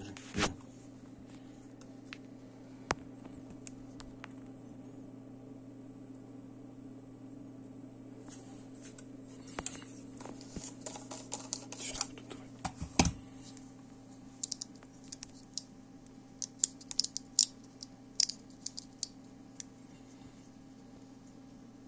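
Small sharp clicks and taps from a FED-4 camera and its metal lens being handled and turned in the fingers, scattered at first, with a louder knock about 13 seconds in and a quick run of clicks after it, over a steady low hum.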